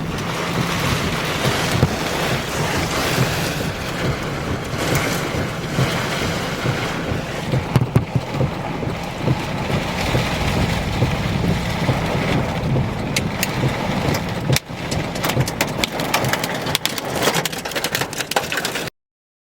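Storm wind buffeting the microphone, with rain. A run of sharp ticks comes in over the last several seconds, and the sound cuts off suddenly just before the end.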